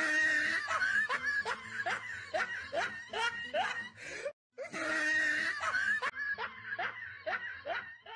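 A person laughing: a quick string of snickering 'ha' sounds, about three a second, that breaks off briefly a little past four seconds in and then picks up again.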